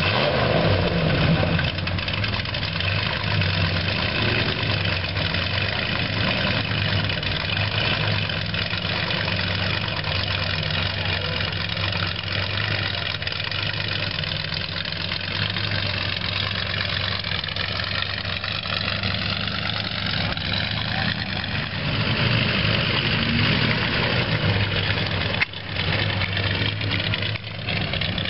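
Engine of a custom rat-rod semi-tractor running at low revs as it rolls slowly away, getting louder about three-quarters of the way through.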